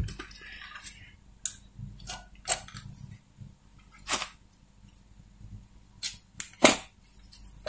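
A few scattered light clicks and taps from handling a TV power-supply circuit board and its wires, as a wire end is pushed into the board's holes; the loudest two come near the end.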